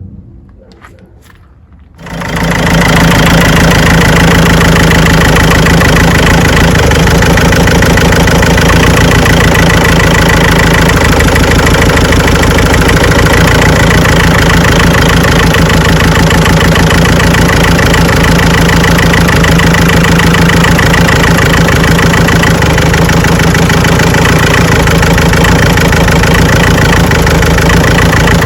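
Ford Transit 2.2 diesel engine starting about two seconds in, then idling loudly with a rhythmic clatter from the second cylinder. It is the knock that swapping injectors did not cure and that the owner later traces to the engine control unit.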